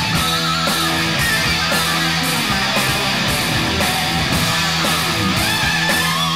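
Background rock music led by strummed electric guitar, with a steady beat of about two a second.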